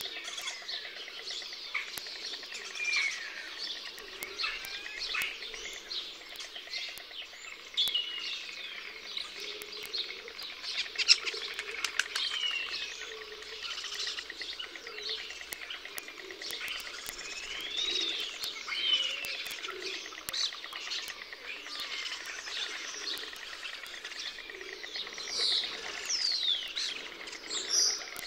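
Chorus of many birds chirping and whistling, with short notes sliding up and down and overlapping throughout. A few sharp clicks are scattered through it, the loudest about eleven seconds in.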